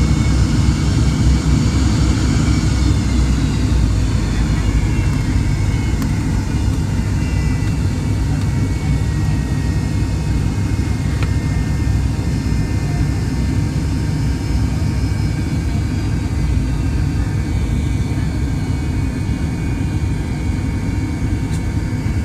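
Cabin noise of a McDonnell Douglas MD-88 taxiing, its rear-mounted Pratt & Whitney JT8D engines at low power: a steady low rumble with faint high whines, a few of which slide down in pitch about three seconds in, heard from inside the cabin.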